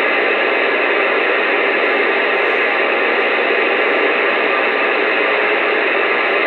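Uniden Bearcat CB radio on AM putting out a steady hiss of static through its speaker while no station is transmitting and only a weak signal shows on its meter.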